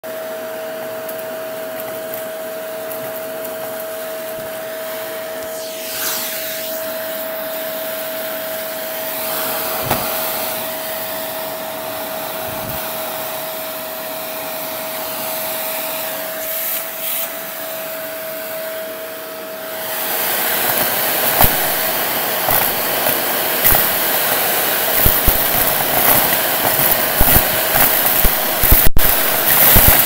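Shark vacuum cleaner running with a steady whine. About twenty seconds in it gets louder as the crevice tool sucks up dry debris, paper scraps and plastic beads, with rapid crackling and rattling.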